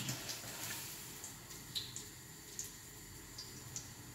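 Faint, scattered ticks and pops of oil crackling in a frying pan, a few each second, over a low steady background hum.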